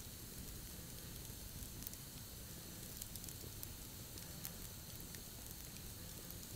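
Wood campfire burning, with scattered small crackles and pops over a steady hiss.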